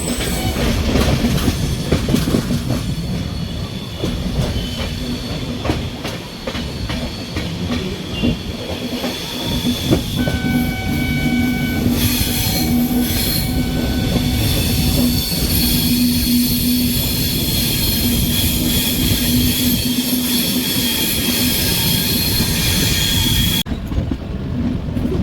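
Indian Railways passenger train running along the track, with clattering wheels and a steady low hum. A brief horn sounds about ten seconds in. High-pitched wheel squeal runs through the second half.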